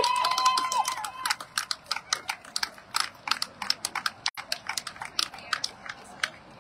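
Scattered handclaps from a few people, uneven and thinning out, stopping near the end. A high held call from a voice cheering ends in the first second.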